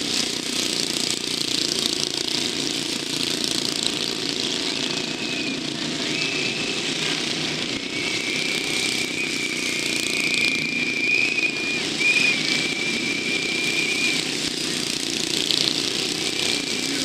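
Engines of the pacing motorcycles in a stayer race running as they lap the velodrome, a continuous engine hum. A thin, high, steady whine comes in about five seconds in and fades after several seconds.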